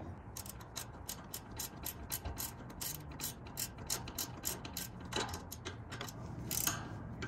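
Socket ratchet wrench clicking in a steady run of several clicks a second, tightening the 11 mm nylon lock nuts on the roof-rack wind deflector's brackets.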